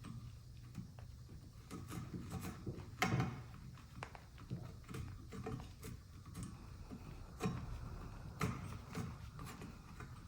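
Hands-on workshop handling noises: scattered light knocks, clicks and rustling as wiring is fed through a motorcycle handlebar, with the sharpest knock about 3 seconds in.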